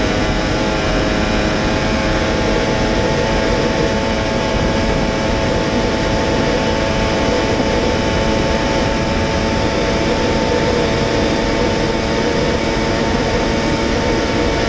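Kawasaki H2R's supercharged inline-four engine held at high revs in sixth gear near its top speed of about 400 km/h, a steady whine over heavy wind rush.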